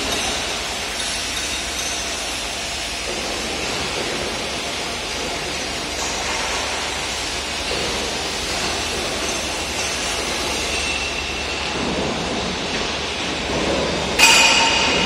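Steady machinery noise in a factory hall, with a low hum underneath. Near the end comes a single sharp metallic clank that rings briefly.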